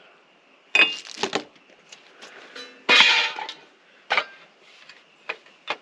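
Small metal bracket parts and a rubber sheet being handled and set down on a wooden workbench: a few separate clanks and clatters, the loudest about three seconds in.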